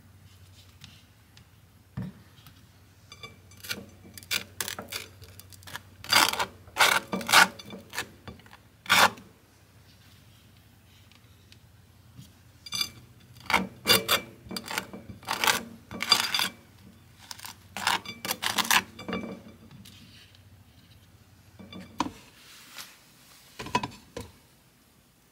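Butter knife scraping butter across crisp, dark toast: rough rasping strokes in two runs of several seconds each. A few light knocks near the end.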